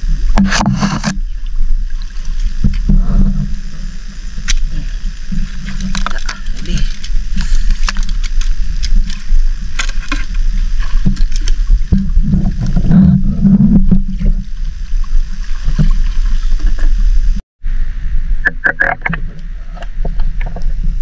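Water sloshing and knocking around a GoPro camera held under shallow sea water. It is heard muffled over a steady low rumble, with irregular surges and small clicks. The sound drops out for a moment near the end.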